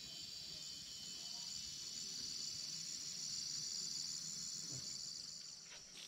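Chorus of insects in the forest: a steady, high-pitched trill with a fast, even pulse.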